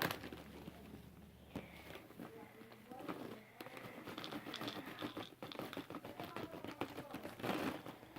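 Soft crinkling and handling of a bag of Hot Cheetos, with many faint small clicks.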